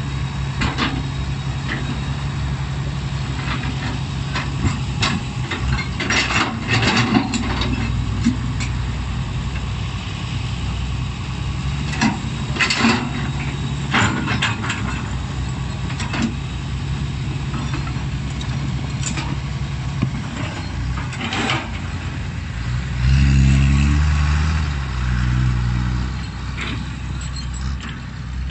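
Diesel engines of a Hitachi hydraulic excavator and a six-wheel dump truck running steadily, with scattered clunks and rattles as the excavator bucket drops soil onto the tipped steel dump bed. About two-thirds of the way in, an engine revs up for a few seconds, the loudest part.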